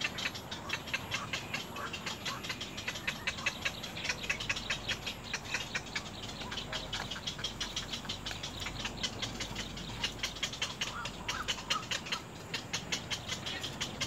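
Rapid, even ticking animal calls, several a second, running on without a break, with a faint high steady buzz over the first part.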